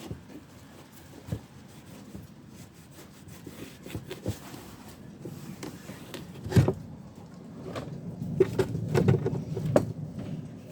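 Cleaning and handling a plastic car rear light unit: soft rubbing and wiping with scattered clicks and knocks of plastic, a sharper knock about six and a half seconds in and busier rubbing near the end.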